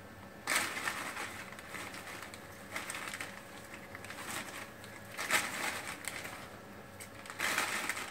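A clear plastic bag of dried hibiscus flowers crinkling in four short bursts, about two seconds apart, as it is handled and flowers are pinched out of it.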